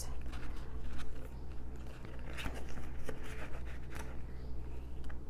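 Paper banknotes and a plastic zip pouch in a ring binder being handled: light rustling and crinkling with scattered small clicks, over a steady low hum.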